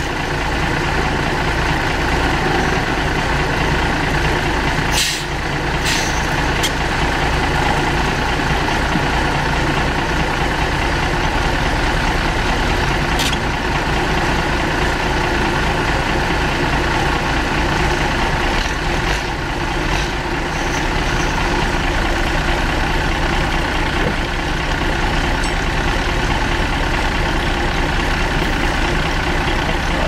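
Heavy engine running steadily at idle, with a few short sharp knocks about five, six and thirteen seconds in.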